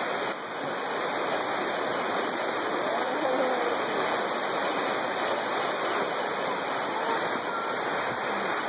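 Waterfall and whitewater creek rushing steadily.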